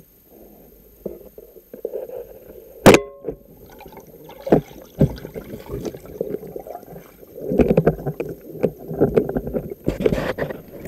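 Speargun shot taken underwater at a pike: a single sharp crack with a brief metallic ring about three seconds in, followed by a couple of knocks and later bursts of churning water noise. Heard through an underwater camera housing.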